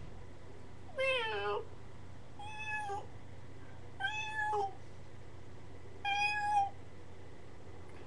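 Domestic cat meowing four times, short calls a second or two apart, the first sliding down in pitch and the rest held fairly level.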